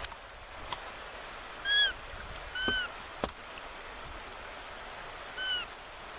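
A bird calling three times: short, clear notes that each rise and fall in pitch, two close together and one about three seconds later.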